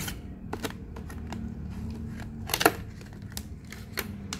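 Clear plastic blister packaging crackling and clicking as hands flex and pry it open around a new pair of pliers, in a run of sharp, irregular clicks with the loudest snap about two and a half seconds in.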